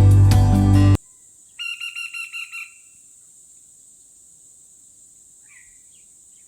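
Background music cuts off about a second in. Then a woodpecker gives a quick call of about seven short, sharp pitched notes in a little over a second, with faint hiss after it.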